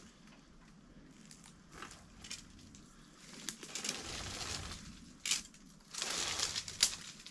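Crunching, rustling handling noise in two spells, about three and a half and six seconds in, with a few sharp clicks.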